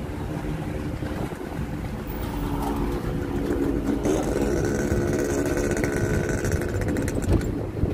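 Traffic noise heard from inside a moving vehicle, with a steady engine drone that grows louder from about two seconds in and fades near the end.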